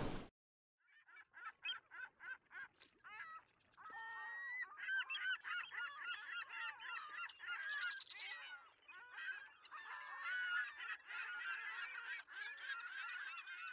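A flock of gulls calling: a quick series of short separate calls from about a second in, then many overlapping calls from about four seconds on.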